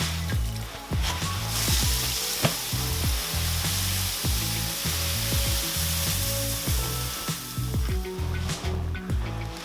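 Background music with a changing bass line, over a steady hissing rush that starts about a second and a half in and stops near the end.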